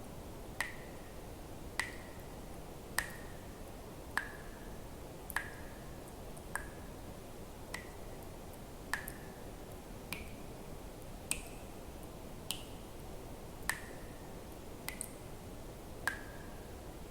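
Water drops dripping into water, one plink about every 1.2 seconds, each with a brief ringing tone, a few pitched a little higher than the rest, over a faint steady hiss.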